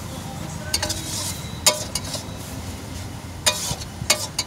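Metal spatula scraping and clanking against a metal wok while stir-frying noodles, with a handful of sharp clangs scattered through, the loudest about one and a half seconds in.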